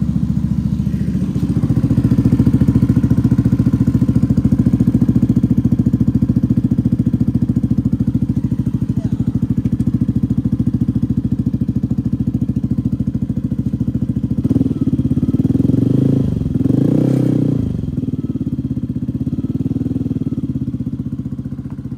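Yamaha NVX scooter's single-cylinder engine idling through an aftermarket slip-on exhaust, blipped twice in quick succession a little past the middle, each rev rising and falling in pitch, before settling back to idle.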